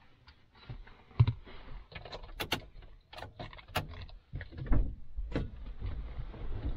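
Irregular clicks, knocks and rattles of hands handling parts inside a vehicle during a car-stereo install, with a low rumble joining about halfway through.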